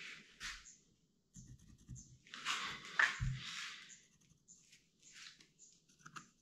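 Pencil marking a wooden stair board: a run of short scratchy strokes, loudest around the middle, with a dull knock on the wood just after them.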